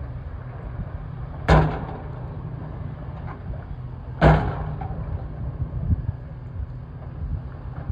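Excavator engine running steadily while the machine works on an old bridge, with two loud sharp bangs about a second and a half in and again near the middle, each ringing briefly.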